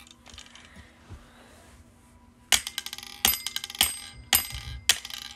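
Mini desktop strongman (high-striker) toy being struck with its little hammer: faint handling at first, then from about two and a half seconds in, five sharp metallic clinks, roughly two a second, each with a brief high ring.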